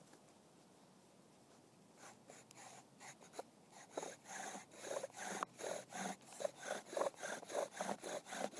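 Bow drill at work: the wooden spindle rubbing and grinding in the fireboard socket as the takedown bow is sawed back and forth. It starts about two seconds in and builds to an even stroke rhythm of about three strokes a second, getting louder.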